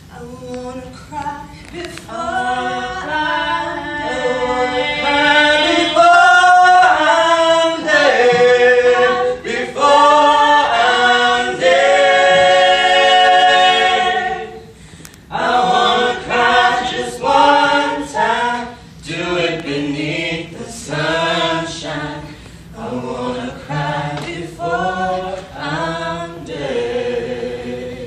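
A group of voices singing together unaccompanied. Long held notes swell in the first half, break off briefly about halfway, then give way to shorter, rhythmic phrases.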